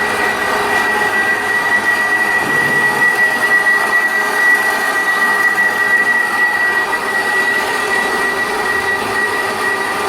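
Portable line-boring machine running with a steady, high-pitched metallic whine and a rushing mechanical noise beneath it.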